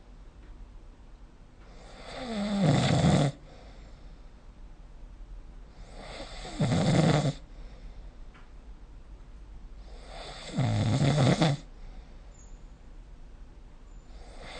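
A person snoring in sleep: three snores, each a second or so long, coming about every four seconds in an even rhythm.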